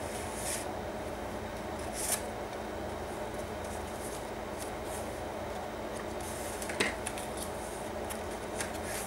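Cardstock pages and a paper tag of a handmade journal rustling as they are handled and turned, with short crisp paper sounds about half a second, two seconds and seven seconds in, over steady room noise.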